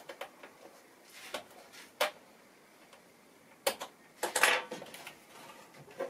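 Scattered clicks and light knocks of a plastic laptop case being handled: the back cover panel pressed home, then the laptop picked up and turned over, with a cluster of louder knocks about four seconds in.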